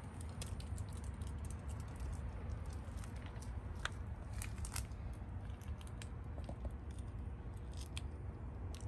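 Low steady rumble with many small scattered clicks and crackles from a handheld camera being moved about; no organ notes sound.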